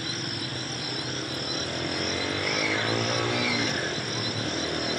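Steady outdoor background din: a low engine-like hum with a high, steady whine over it, and a motor note that rises and falls in pitch through the middle.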